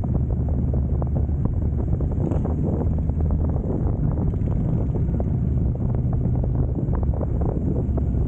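Motorcycle engine running steadily while riding, with wind buffeting the microphone and many small knocks throughout.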